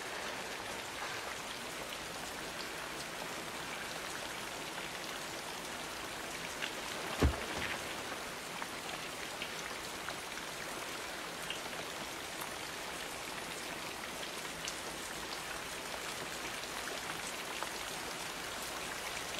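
Steady rain falling, with scattered drips, and a single low thud about seven seconds in.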